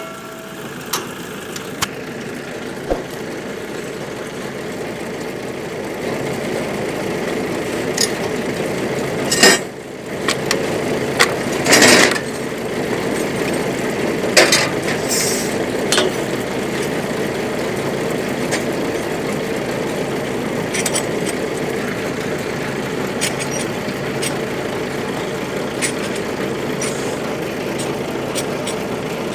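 Engine of a borewell pump-pulling rig running steadily while the riser pipe is lifted, growing louder about six seconds in. Several sharp metal clinks from the pipe clamp and tools, and two short bursts of noise in the middle.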